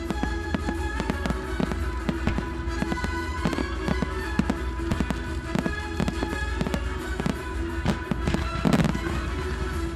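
Fireworks display set to music: a quick, irregular series of shell bursts and crackles over a steady music soundtrack, with one heavier bang near the end.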